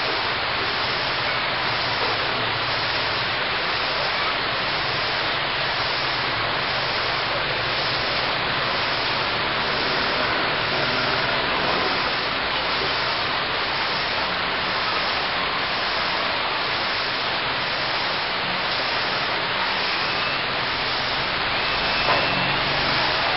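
Rain falling steadily: an even, dense hiss.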